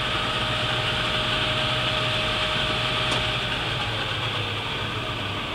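Hardinge HLV-EM super precision tool room lathe running at its top spindle speed of 3,000 RPM: a steady low hum under a whine, the whine slipping slightly lower and fading about four seconds in.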